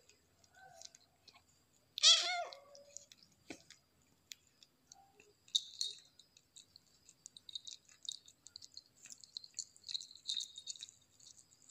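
A kitten meows once, about a second long and loud, about two seconds in. From about halfway on it chews chicken liver, a run of small quick clicks and smacks.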